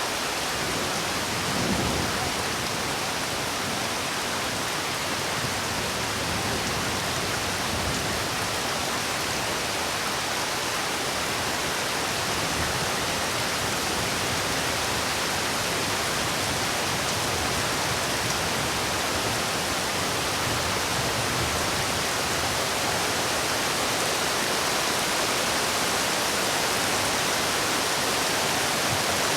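Heavy rain falling in a steady, even hiss that holds without a break.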